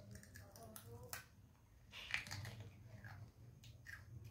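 Near-quiet room tone: a low steady hum with a few faint clicks and rustles scattered through it.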